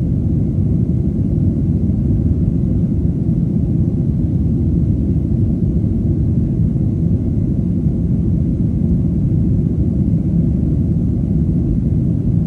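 Steady low rumble of a Boeing 737's jet engines and rushing air, heard inside the passenger cabin during the climb after takeoff.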